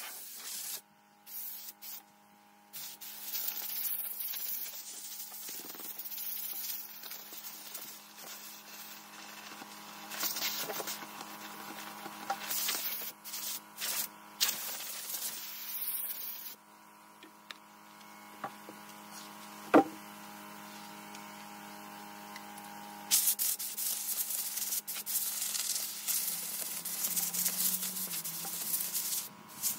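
A steady mechanical hum, with stretches of rubbing on the wooden paulownia slab and one sharp click. About three-quarters of the way through, a continuous hiss starts as air is blown over the slab, clearing sanding dust off the tabletop.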